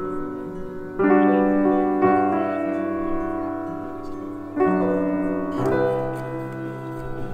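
Background music: a slow piano introduction, chords struck a few times and each left to ring out, with no singing yet.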